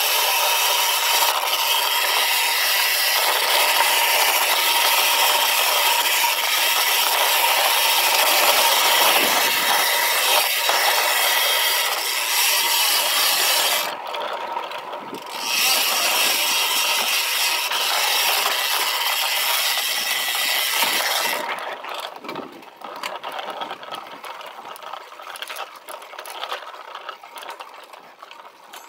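A road bike's freewheel hub buzzing steadily while coasting fast down a dirt trail, mixed with tyre noise on the dirt. The buzz cuts out briefly about halfway through. About three quarters of the way in it gives way to quieter, irregular rattling and crunching.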